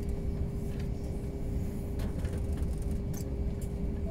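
Airbus A320 cabin noise on the ground: a steady low rumble with a constant hum, and a few faint clicks.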